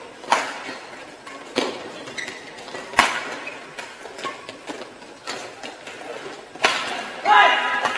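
Badminton rackets striking the shuttlecock in a fast doubles rally: sharp smacks every second or so, echoing in a large hall. Short squeaks in between and a louder squeal near the end, from the players' shoes or voices.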